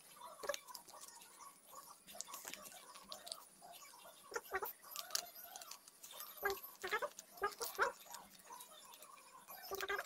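Sheet of coloured paper crinkling and crackling as it is folded by hand, in many small irregular clicks. A few short calls sound in the background about midway and near the end.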